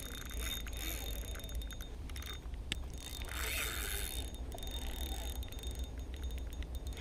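Spinning reel being cranked to take in line on a hooked salmon, its gears giving a rapid fine ticking.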